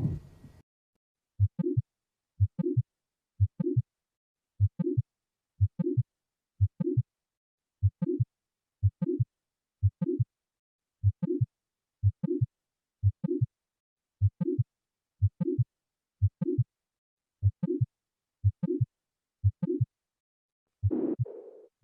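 Recorded heart sounds for auscultation training: a steady heartbeat of about one beat a second, each beat a low first sound and a low second sound with a short murmur filling the gap between them, a systolic murmur, and silence between beats. About a second before the end a different, hazier recorded sound begins.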